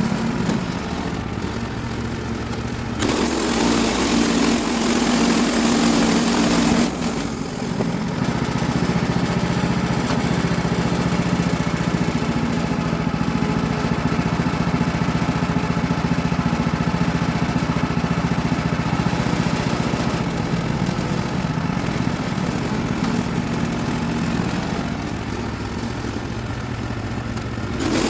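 Gas engine of a Woodland Mills portable bandsaw mill running steadily, driving the band blade as it cuts along a log, louder for a few seconds near the start.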